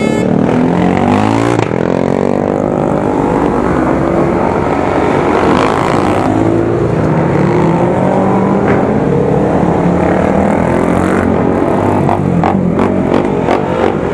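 Several 250 cc racing motorcycles revving and accelerating away one after another. Their engine notes overlap and rise in pitch as each one pulls away.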